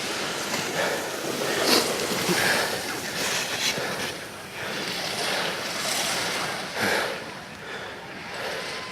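Ski edges scraping across hard snow as a slalom racer carves through the gates, a hiss that swells with each turn about once a second.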